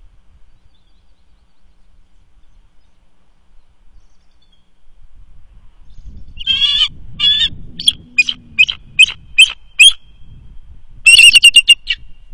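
A bird calling, high and loud, starting about six seconds in: two drawn-out calls, then a string of short sharp notes about two a second, then a fast chattering run of notes near the end, the loudest of all.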